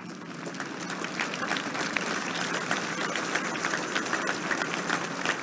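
Large crowd applauding, the clapping swelling over about the first second and then holding steady.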